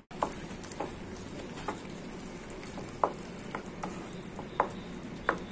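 Wet potato masala sizzling gently in a pan as a wooden spatula stirs and mashes it, with a steady hiss and about eight soft, irregular scrapes and squelches.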